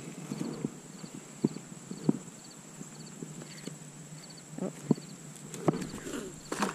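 Field insects trilling steadily, with short chirps repeating at an even pace, and a handful of sharp clicks and taps scattered through.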